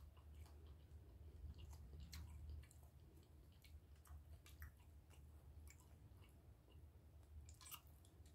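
Faint close-up chewing of soft breakfast food, with scattered small clicks, over a low steady hum.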